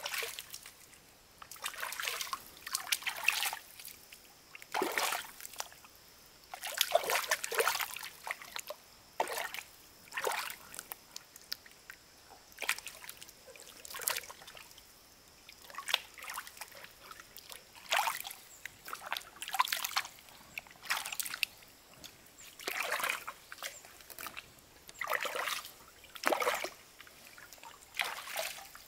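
Water splashing and sloshing in short, irregular bursts, one every second or two.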